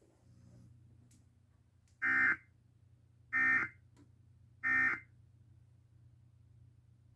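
Emergency Alert System end-of-message data tones: three short, harsh electronic bursts about a second and a half apart, marking the end of the flash flood warning broadcast.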